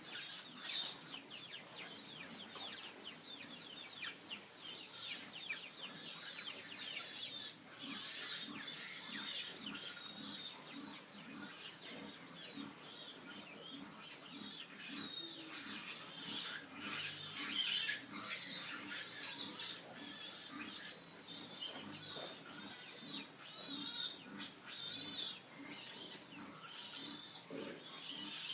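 Several pigs squealing continuously, their high-pitched cries overlapping, with low grunts pulsing underneath.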